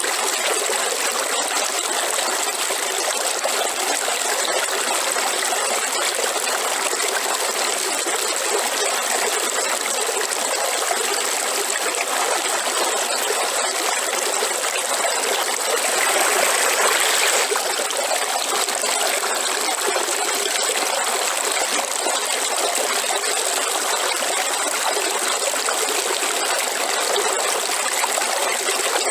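River water flowing in a steady, even rush, swelling a little louder for about a second and a half about halfway through.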